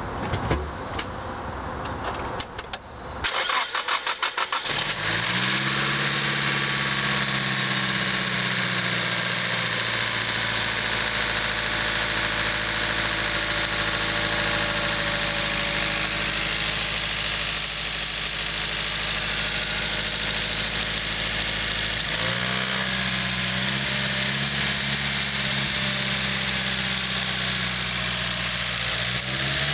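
Nissan SR20DET turbo four-cylinder cranked over by the starter for about two seconds, catching and then idling steadily. The owner asks whether a ticking in it is lifter tick, after the valve-cover hose came off during 30–40 minutes of hard driving.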